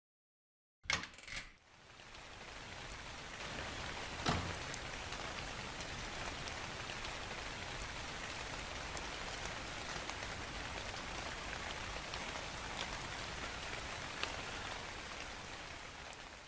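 Rain sound effect, fading in and then falling steadily as an even hiss, with a brief bang about a second in and a single louder drop-like hit about four seconds in.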